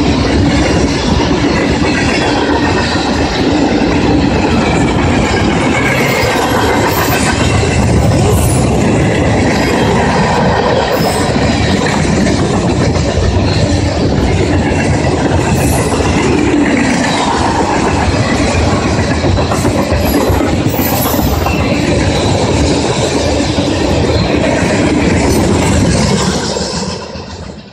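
Norfolk Southern mixed freight train's cars rolling past: a steady rumble and clatter of steel wheels on the rails, fading out near the end.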